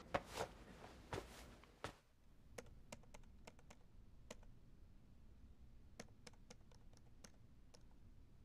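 A few soft knocks, then typing on a MacBook Air laptop keyboard: scattered light key clicks in short irregular runs, with a pause in the middle.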